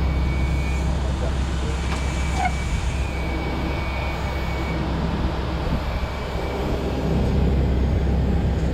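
An engine running steadily at low speed, a constant low hum, with a single light click about two seconds in.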